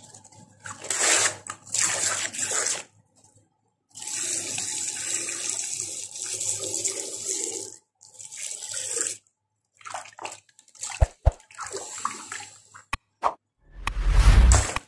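Water balloons being punctured: water squirts out in a steady hissing jet and splashes over the balloons. There are several sharp pops, and near the end comes a louder, heavier gush of water.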